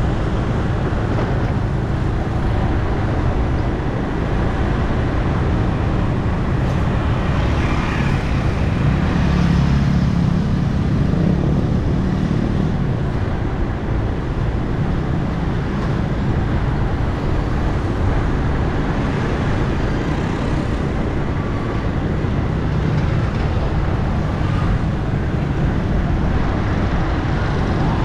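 Steady street traffic noise from motorbikes and cars, a dense low rumble that swells a little about ten seconds in.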